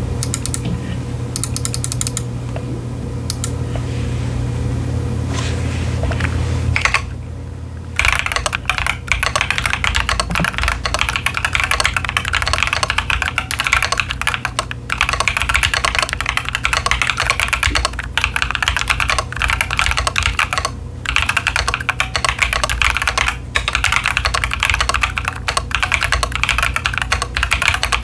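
Typing on a Keychron Q10 mechanical keyboard with TTC Chaotic Panda tactile switches and doubleshot PBT ASA-profile keycaps: a continuous run of key clacks that starts about eight seconds in, after a steady low hum.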